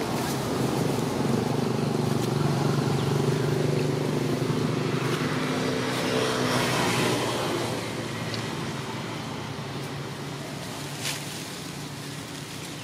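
A motor vehicle engine passing by, its hum growing over the first few seconds, then fading away.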